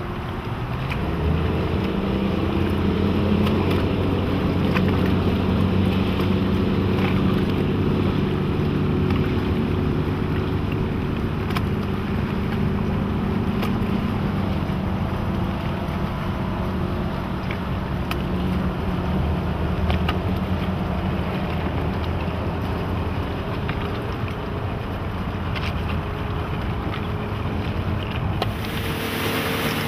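Suzuki 225 HP four-stroke V6 outboard motor on a center-console boat, picking up speed about a second in and then running steadily as the boat pulls away and passes, with wind on the microphone. Near the end it gives way to a rushing noise of wind and water.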